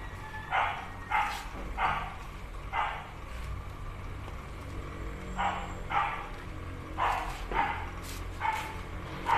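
A dog barking: about ten short barks in two runs, with a pause of a couple of seconds in the middle, over a steady low hum.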